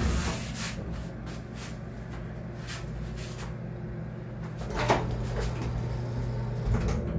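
Elevator car riding down: a steady low hum with a few clicks and knocks from the car and its doors. The loudest knock comes about five seconds in, where the hum gets louder.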